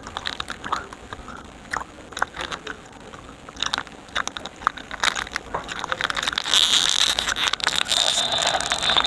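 Close-up crunching and chewing of candy, sparse sharp crunches at first, becoming a busier crackling from about halfway through.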